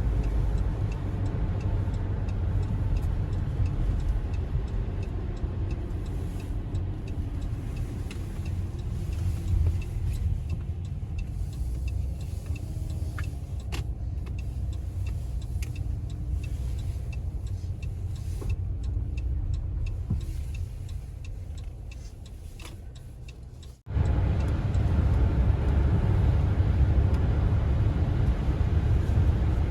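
Steady low rumble of road and tyre noise heard from inside a car driving along a snowy highway, with scattered faint clicks. About three-quarters of the way in, the sound cuts off abruptly and comes back louder.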